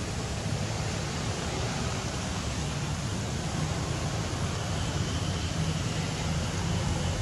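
Steady rushing outdoor background noise with a low rumble underneath and no distinct events.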